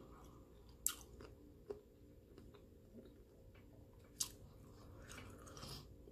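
Faint chewing of a raw cucumber slice, with a few sharp, crisp crunches about a second in and again near four seconds.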